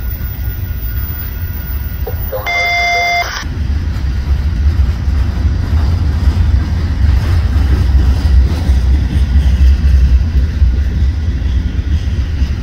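Freight train's hopper and gondola cars rolling past close by with a steady low rumble that grows louder about three and a half seconds in. A short electronic beep sounds once about two and a half seconds in.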